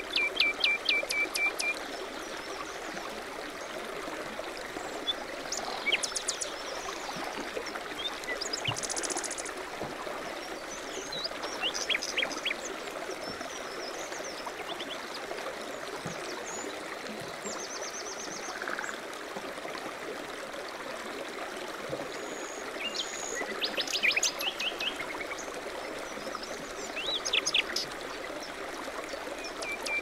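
Small songbirds chirping and trilling in short scattered phrases over the steady rush of a flowing stream, with a quick rapid trill right at the start.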